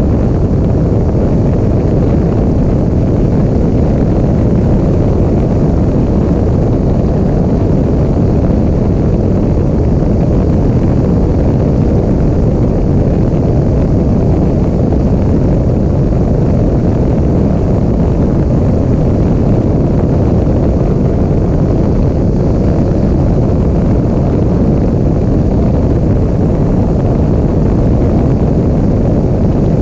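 Steady rumble of a propeller biplane in flight, picked up by a camera on its wing: engine and wind noise blended into one even rush with no change in pitch or level.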